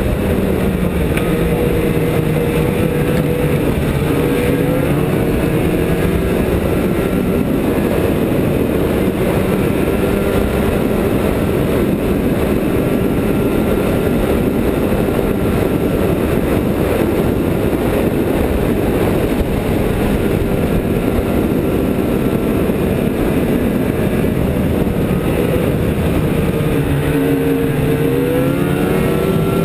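Snowmobile engine running steadily under way, heard from the rider's own machine. Its pitch shifts about four seconds in and climbs again near the end as it picks up speed.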